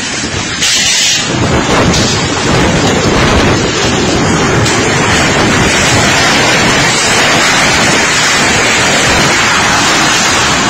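Tornado winds blowing as a loud, continuous rushing noise, with the wind buffeting the phone's microphone; it steps up louder about a second in and stays loud.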